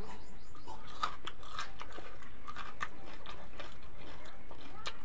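Close-up eating sounds: chewing and scattered wet mouth clicks and smacks as people eat rice and curry by hand, over a steady background hiss.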